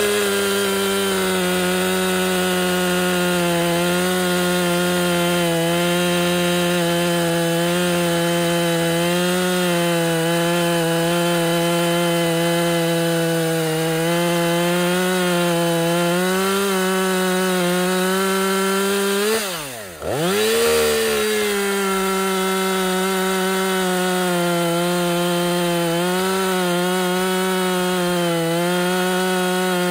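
Husqvarna T540 XP Mark II top-handle chainsaw's two-stroke petrol engine running at full throttle while cutting through a log. The engine note holds steady under load, with one brief sharp drop in pitch and level about twenty seconds in before it comes back up.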